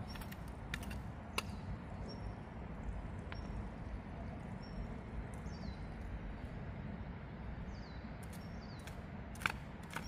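A hand hoe working stony soil, with a few sharp clicks as the blade strikes stones, the loudest near the end. Over a steady low rumble, a small bird gives short high chirps now and then, a couple of them falling in pitch.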